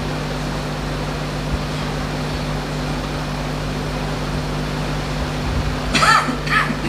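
Steady low hum and hiss of the room through the mosque's microphone and sound system, with no one speaking. Two short voice sounds come about six seconds in.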